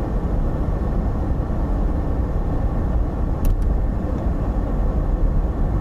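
Steady low rumble of road and engine noise inside a moving car's cabin, with two brief clicks about three and a half seconds in.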